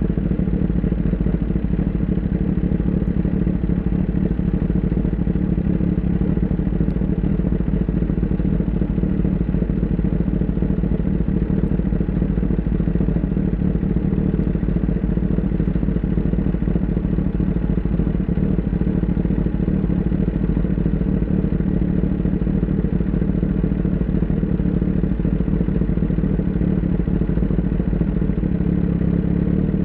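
Kawasaki ZX-10R's inline-four engine running steadily at an unchanging engine speed, with no revving up or down.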